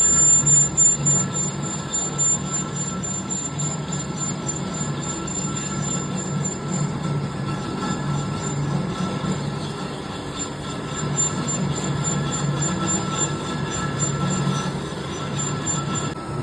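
Lathe running steadily while turning a rotor or armature, with a steady high whine over a low hum.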